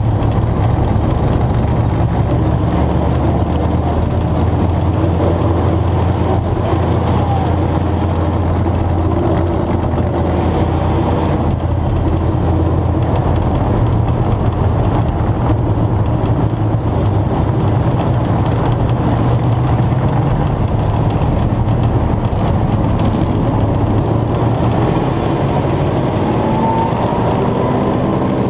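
Vintage dirt-track race car's carbureted engine running at a steady, moderate pace, heard close to its hood-mounted air cleaner, with the note shifting upward near the end. Other race cars' engines mix in.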